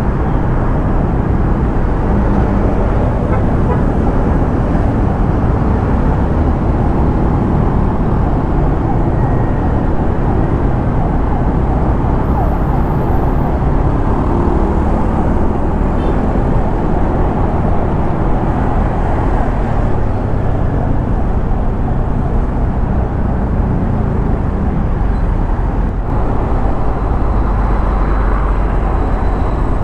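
Steady wind and road rush on the microphone of a moving Honda Click scooter, with its engine running underneath. Heaviest in the low end and unbroken.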